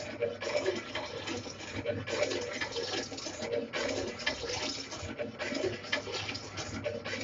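Lathe turning a large-diameter pipe with an insert cutter on a 5 mm depth of cut: a steady hissing, scraping cutting noise that swells and dips irregularly about once a second, over a low machine hum.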